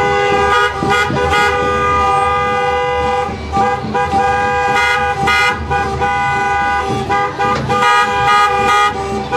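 Vehicle horns sounding in long held blasts, several pitches at once, with the held notes shifting every few seconds and a few sharp knocks in between.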